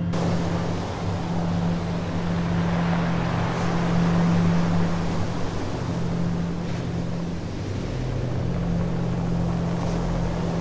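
A vehicle engine running steadily with a low hum, under a constant rushing noise of travel.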